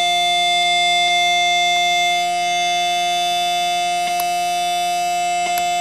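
A homebuilt 4-bit linear PCM synthesizer, made of Soviet clones of 7400/74LS TTL chips, plays a steady tone through an amplifier as it counts without looping through all 256 4-bit values of its random power-up RAM contents. A few faint clicks sound over it.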